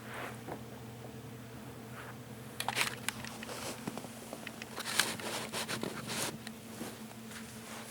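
Close handling noise: rustling, scraping and a run of sharp clicks, most of them from about two and a half to six and a half seconds in, over a steady low hum.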